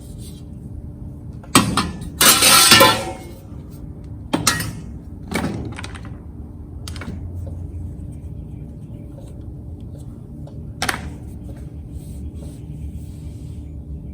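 Metal clanks and a brief clattering scrape, as of sheet-metal panels and hand tools being handled on a car body: one knock, then a louder rattling scrape of about a second, then a few scattered knocks over a steady low hum.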